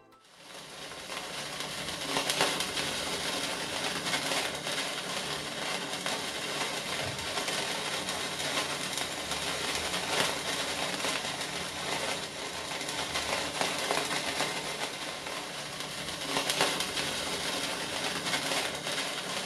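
A lit sparkler cast into an epoxy resin block, burning with a steady fizzing crackle that swells in over the first couple of seconds.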